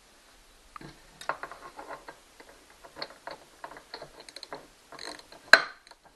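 Irregular metallic ticks and clicks of a tool working the last outboard mounting bolt loose, with one sharp, loud metal clack about five and a half seconds in.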